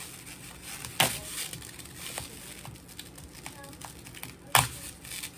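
Boiled crab shell cracking and snapping as it is pulled apart by hand: two loud sharp cracks, about a second in and again near the end, with smaller clicks and crackles between.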